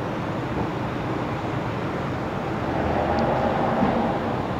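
Steady machinery noise with a low hum, swelling slightly about halfway through.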